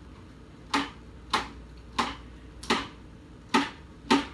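Knife slicing a banana, each cut ending in a sharp knock on the cutting surface, six times at a steady pace of about one cut every two-thirds of a second.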